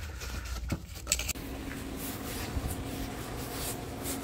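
A few short clicks and rubbing noises about a second in, then a steady low hum.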